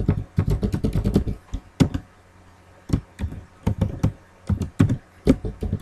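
Typing on a computer keyboard: quick runs of sharp keystrokes with short pauses between them.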